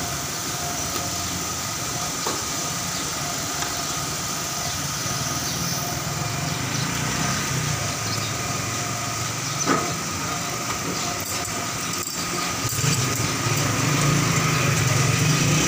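A steady mechanical drone with a low hum and a few light knocks, getting louder near the end.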